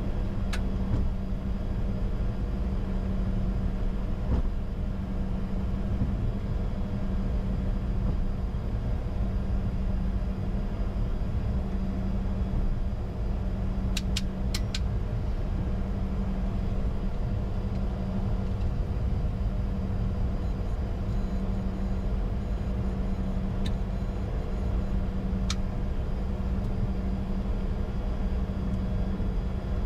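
Steady cockpit noise of a Bombardier Challenger 605 taxiing at idle, with the APU running: a constant low rumble and a steady hum. A few faint clicks come through about halfway in and again later.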